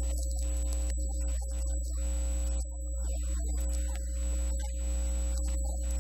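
A steady low hum with faint, thin steady tones above it, and no speech.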